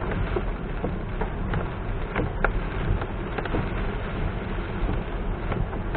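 A car driving in heavy rain: a steady low road rumble with raindrops ticking irregularly on the car.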